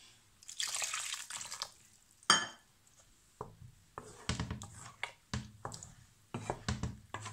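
Water poured into thick masala paste in a steel kadai, a sharp metal clink about two seconds in, then a wooden spatula stirring the thickened gravy in a run of short strokes.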